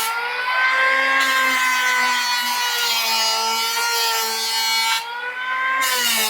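APR electric hand planer running with a steady high motor whine, shaving wood in passes that add a rasping hiss. The hiss drops away briefly near the start and again about five seconds in, leaving the motor spinning free.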